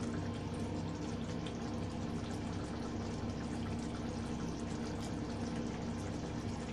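Fish curry simmering in an open clay pot, a steady bubbling over a low, even hum.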